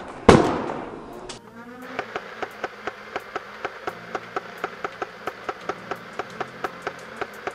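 A sharp bang with a ringing tail near the start. Then a Nerf Rival Nemesis MXVII-10K firing full auto: a steady motor buzz with an even click for each round fired, about five a second.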